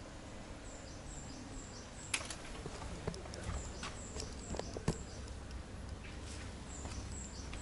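A bird calling in short, very high chirps that fall slightly, repeated in runs of three or four, over a low steady background, with a few sharp knocks, the loudest about two and five seconds in.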